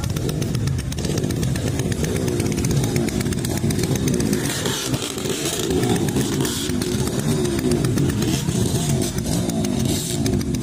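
Motorcycle engine running, its pitch rising and falling.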